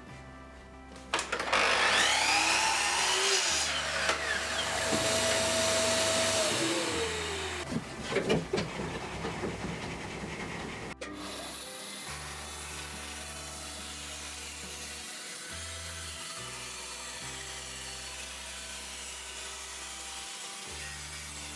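A sliding mitre saw spins up, cuts through a timber board and winds down with a falling whine. Then a bandsaw runs steadily as a board is fed along its fence to resaw it into thin laminations.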